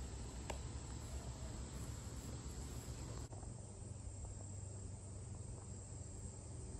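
Faint outdoor ambience: insects chirping over a low steady rumble, with a single brief click about half a second in. The background hiss thins abruptly a little after three seconds.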